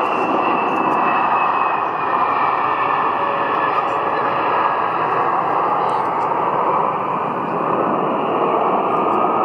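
Jet roar from an Embraer 175 airliner's twin turbofan engines during its landing roll-out: a steady rushing noise with a thin whine that slowly falls in pitch as the aircraft slows and moves away.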